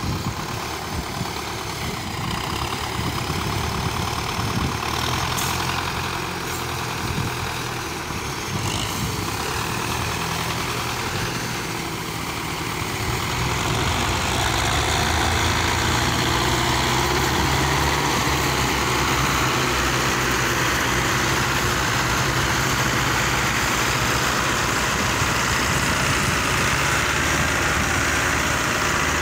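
Several tractor diesel engines running together as a chained line of five tractors strains to pull a stuck, loaded sugarcane trolley free. The engine noise grows louder about halfway through as they pull hard, then holds steady.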